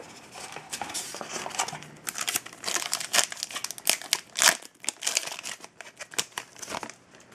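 Foil trading-card pack wrapper crinkling and tearing as it is opened by hand, a dense run of irregular crackles that dies away just before the end.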